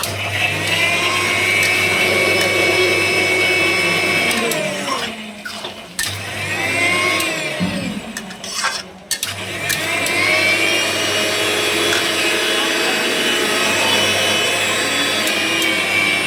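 Electric kitchen mixer grinder run in three goes: a run of about four seconds, a short burst near the middle, then a long run in the second half. Each time the motor whine rises in pitch as it speeds up and falls as it winds down.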